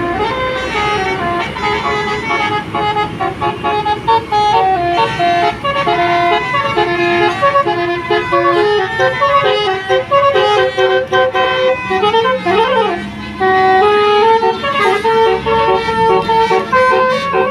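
Indonesian bus telolet horn playing a tune of stepped, held notes, with a quick up-and-down pitch sweep about three-quarters of the way through, over the low rumble of the bus.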